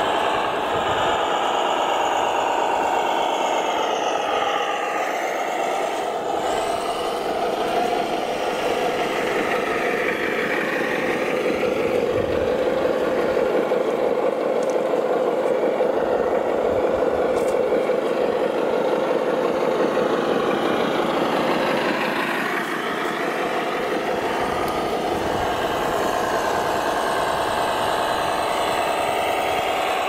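Scale RC trucks crawling along under load, a steady whine of motors and gears that drifts up and down in pitch with the throttle.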